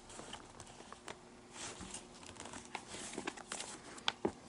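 Leather lace being threaded and drawn through the lace holes of a leather baseball glove (Nike Diamond Pro J): scattered rustles and scrapes of leather on leather, with a few small clicks toward the end.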